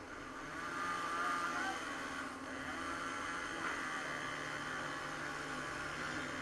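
Motor vehicle traffic passing, a steady engine hum that grows louder about half a second in and holds.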